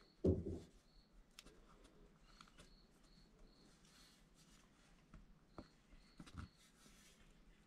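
Faint handling of wiring: small clicks, rustles and short high squeaks of a plastic Posi-Tap splice connector being screwed tight onto the throttle position sensor wire, with a soft thump just after the start.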